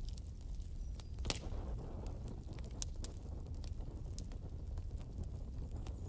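Fire burning with a steady low rumble and frequent sharp crackles and pops. A louder pop comes about a second in, followed by a brief rush of flame.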